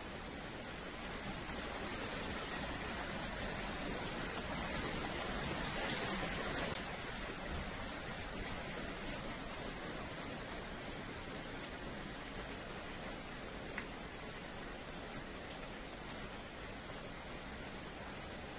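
Steady rain falling on wet paving and metal slatted fence panels. A brief heavier spell comes about five to seven seconds in and drops away suddenly.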